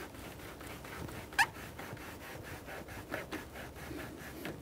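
Spring hose clamp squeezed in hose clamp pliers and slid along a rubber upper radiator hose: faint rubbing and scraping of metal on rubber, with one brief rising squeak about a second and a half in.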